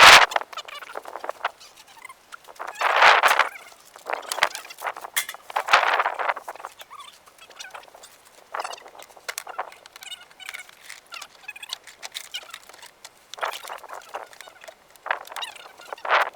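Irregular rustling and scuffing noises with scattered light clicks, coming in short bursts every second or two.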